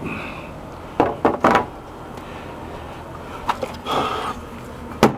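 Knocks on wooden deck framing as a board is worked into place: three in quick succession about a second in, a lighter one, a short scraping sound, then another sharp knock near the end.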